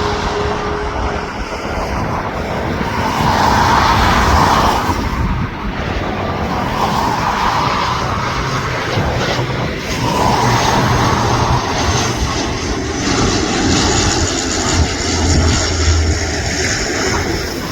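Airliner engines running as the aircraft passes low on its landing approach, with wind buffeting the microphone. A thin, high, steady whine comes in over the last few seconds.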